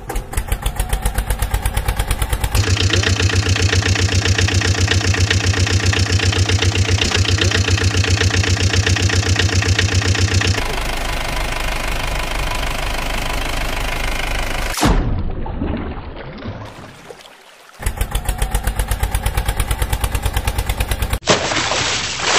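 Diesel engine sound effects idling with a fast, even putter, spliced together as separate clips that switch abruptly every few seconds. One long stretch is louder and deeper, and near the end a harsher, hissier stretch takes over.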